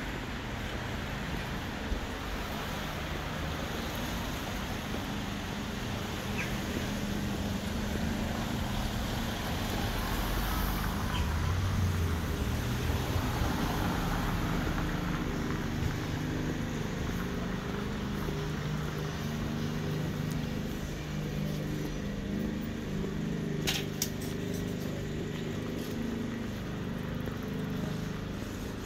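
City street ambience with motor traffic: a steady wash of traffic noise and a low, wavering engine hum that grows stronger through the second half. A few sharp clicks come late on.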